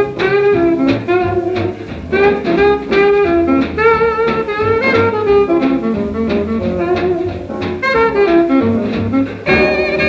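Small-group swing jazz played from a 1940 78 rpm record: reed and brass instruments playing the melody over a double bass and rhythm section.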